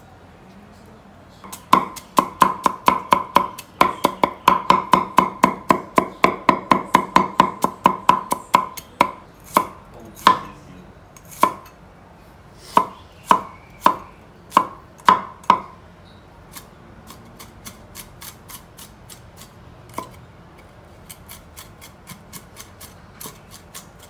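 Kitchen knife chopping on a cutting board, a fast even run of about four chops a second that slows to scattered single chops about halfway through, then a few faint light taps.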